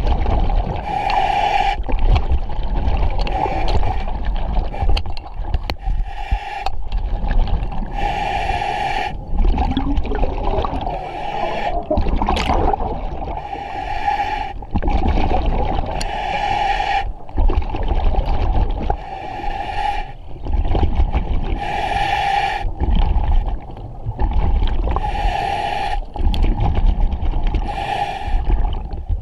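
A diver breathing underwater through a regulator: a hissing inhale alternating with a low rumble of exhaled bubbles, repeating every couple of seconds.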